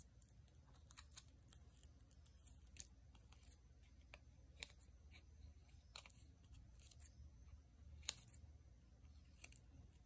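Scissors snipping a paper sticker: scattered short, sharp snips, the loudest about eight seconds in, faint over low room tone.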